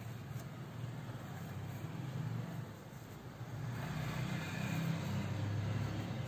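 A low steady hum, made of several close-pitched tones, that grows louder about four seconds in.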